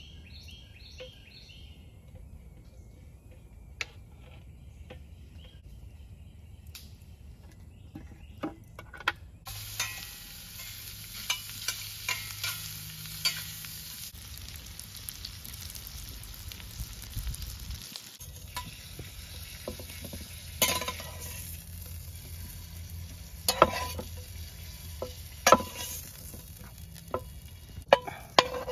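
Food frying in a pan over a campfire: a steady sizzle starts about a third of the way in, broken by sharp knocks and clicks that grow louder near the end. A bird chirps at the start.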